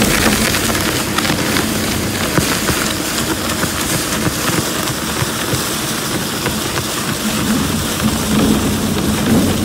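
Model 760 plastic film shredder running, its toothed rotor tearing waste plastic film. A steady motor hum sits under dense crackling of the film being torn.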